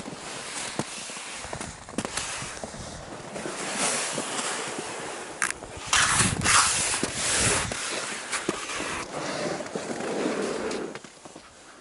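Skiing through wet, slushy snow: irregular crunching and scraping steps, with clothing rustling close to the microphone, loudest about six to eight seconds in.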